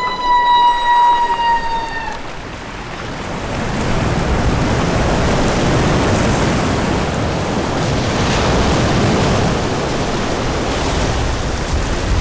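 A humpback whale's feeding call: one long, steady tone with overtones that ends about two seconds in. It is followed by a steady rush of churning, splashing water as the whales lunge up through the surface during bubble-net feeding.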